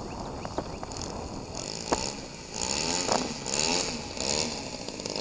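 Converted Cub Cadet (Stihl) 25cc string-trimmer engine on a giant-scale RC airplane, running low and then revved in repeated short bursts from about a second and a half in, its pitch rising and falling with each burst.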